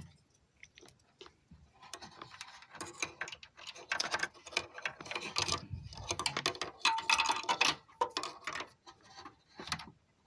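Small clicks and rattles of hands fitting a small internal PC speaker and its lead into a desktop computer case, sparse at first and busy from about two to eight seconds in.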